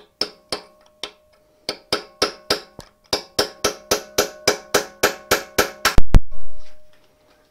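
Lump hammer striking a pin punch on a drilled-out mild steel locating dowel in a Subaru EA82 engine block, about twenty quick blows at three to four a second, each with a ringing metallic note, to crush the thin dowel loose in its hole. About six seconds in comes one heavier, deeper thump, the loudest sound of all.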